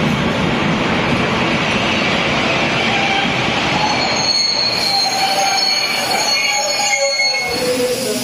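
Vintage railway passenger carriages rolling slowly past along the platform, with a steady rumble from the running gear. About halfway through the rumble fades and thin, high metallic squeals from the wheels and brakes take over.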